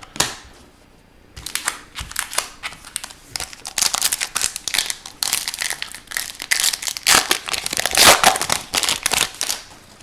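Crinkly foil or plastic trading-card pack wrapper being handled and crumpled, a dense run of irregular crackles starting about a second and a half in.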